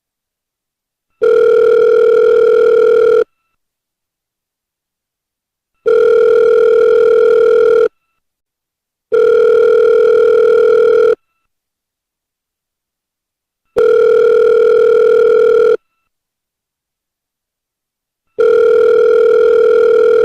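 Outgoing-call ringback tone: a steady, buzzy beep about two seconds long, heard five times with silent pauses of one to two and a half seconds between.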